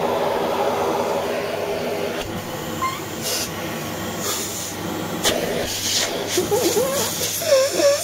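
Canister vacuum cleaner running steadily, its dusting-brush nozzle worked over socks, with a few knocks of the nozzle. A wavering tone comes in over the motor in the last two seconds.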